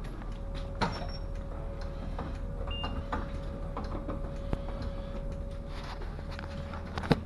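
Bus running with a steady low rumble and hum, small rattles throughout, and two sharp knocks, about a second in and near the end, the second the louder.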